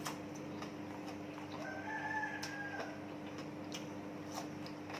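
A rooster crows once near the middle, one held call of about a second. Under it run a steady low hum and a few scattered light clicks.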